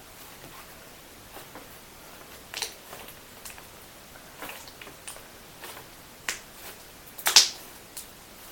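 Butter slime being pressed and stretched by hand, giving irregular soft sticky clicks and pops, the loudest a short cluster about seven seconds in, over a steady hiss.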